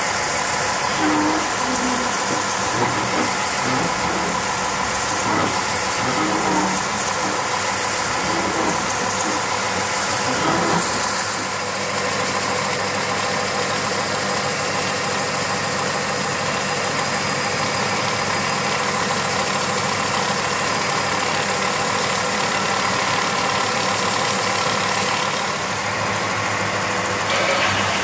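Charnwood BD610 belt and disc sander running steadily, its 750-watt induction motor humming under a hiss of wood being sanded on the 6-inch belt. The workpieces are a flat slab pressed onto the belt, then a curved piece shaped over the radiused drum at the top.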